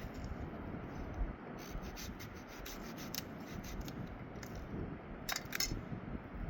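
Wood being worked by hand: rubbing and scraping strokes, with a quick run of short scrapes a couple of seconds in and two louder ones near the end.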